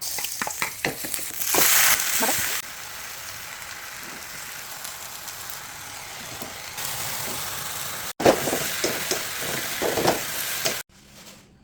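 Sweet potato leaves stir-frying in hot oil: a steady sizzle. A utensil clatters and scrapes against the pan in the first couple of seconds and again in the last few. The sound cuts off just before the end.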